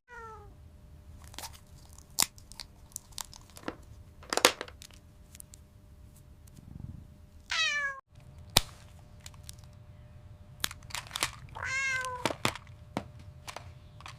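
A cat meowing twice, one falling meow about halfway through and another near the end, among scattered light clicks and taps of small plastic toy pieces being fitted together.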